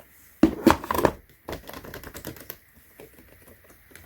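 Typing on a wireless split ergonomic keyboard: a quick, loud flurry of key clacks about half a second in, then lighter, sparser key taps.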